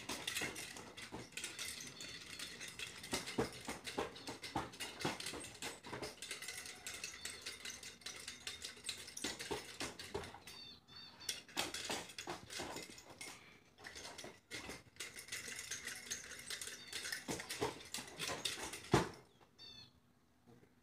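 Small birds chirping and twittering, with scattered sharp clicks and soft rustles.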